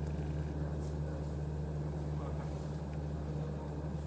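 A steady low mechanical hum, even and unchanging, like an engine running at idle.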